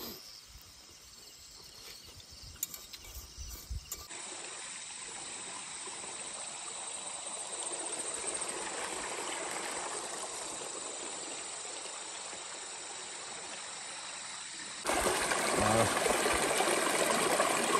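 Small stream running over rocks: a steady rushing water noise that sets in after about four seconds and gets suddenly louder near the end. A few faint clicks come before it.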